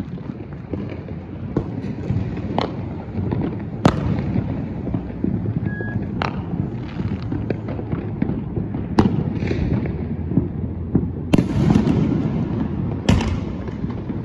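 Many fireworks going off around a neighbourhood: a constant rumble of distant bangs with sharper, louder cracks every second or two, the biggest near the end.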